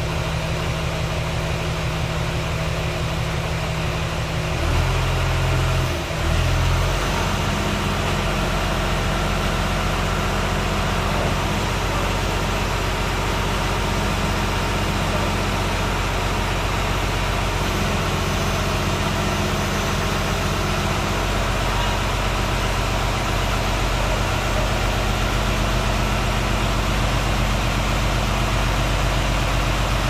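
Wheel loader's diesel engine idling. Its note shifts a couple of times in the first several seconds, with a brief dip, then runs steadily.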